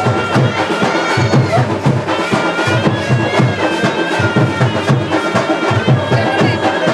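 Live band music: a wind instrument holding a melody of long notes over a steady drum beat.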